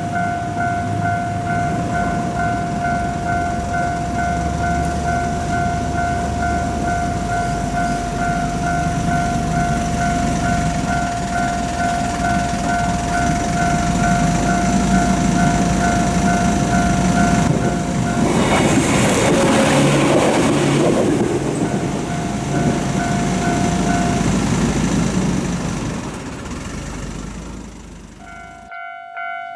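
Japanese level-crossing warning bell ringing with its steady rapid clang (kan-kan) while a train rumbles past. About two-thirds of the way in, the train's noise swells loudest and drowns out the bell for a few seconds. Near the end the sound drops away and a second crossing bell starts ringing.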